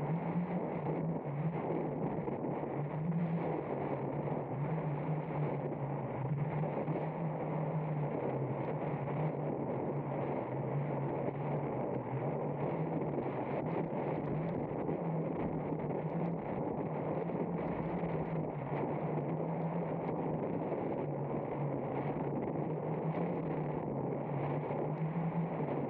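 Wind buffeting the camera microphone and water rushing past a hydrofoil board riding at speed, over a steady low hum that wavers slightly.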